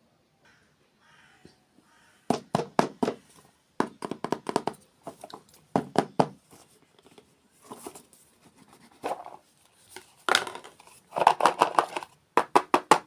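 Close-miked crunchy eating: bites and chewing of dessert, in quick clusters of sharp crunches with short pauses between.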